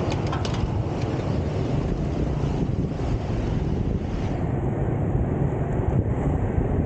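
Steady wind buffeting the microphone while riding along a road, a dense low rumble with no distinct engine note.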